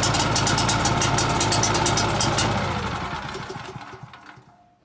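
Champion generator's engine, running on propane with the choke fully on, dies about two and a half seconds in: its pitch sinks and the sound fades out over about two seconds. The owner puts the stall down to the choke.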